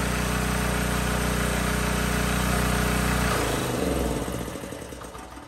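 A HonestPro YAE3083 4000 W portable gasoline generator engine runs steadily, then is switched off a little over three seconds in. It winds down with falling pitch and fades out over about two seconds.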